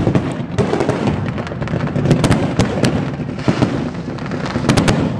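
Fireworks going off: a dense run of sharp bangs and crackles over a continuous low rumble of explosions, with clusters of quick reports about two seconds in and again near the end.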